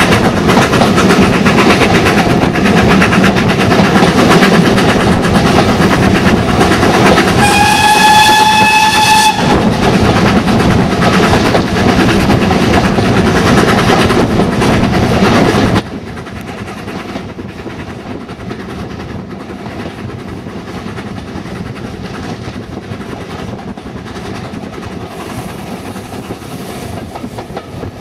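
Steam locomotive running, loud and steady, with a single whistle blast of about two seconds about eight seconds in. Just past halfway the sound drops abruptly to a quieter, steady train running noise.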